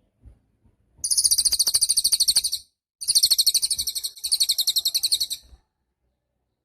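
Cililin songbird singing two rapid, high-pitched trills of evenly repeated notes, about a dozen a second: one of about a second and a half, then after a short pause a longer one of about two and a half seconds.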